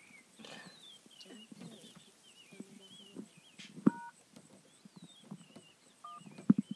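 Small bird, a sooty chat, calling over and over in short wavering whistled notes. Twice, about four and six and a half seconds in, there is a sharp knock with a brief two-tone beep like a phone keypad tone.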